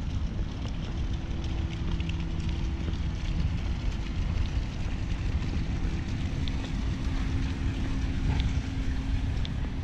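Wind rumbling on the microphone over a steady low machine hum, with a few faint light ticks.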